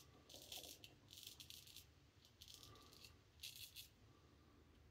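A straight razor scraping through lathered beard stubble on the cheek in a few short, faint strokes.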